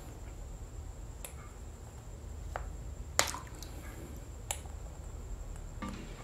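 A few sharp clicks and taps from aquarium filter parts being handled, the loudest about three seconds in, over a low steady hum. Plucked background music begins near the end.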